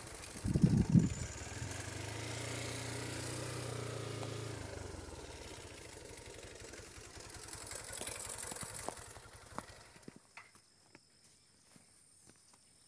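Small motorcycle engine running at low revs, then idling with an even beat that fades and stops about ten seconds in. Light footsteps on a dirt track follow in the quiet.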